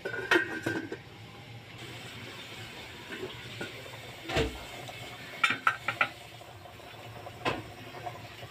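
Stainless steel pot lid clattering and ringing briefly as it is handled and lifted off the pot, followed by a knock and a few more quick metal clinks. A steady low hiss of the boiling broth runs underneath.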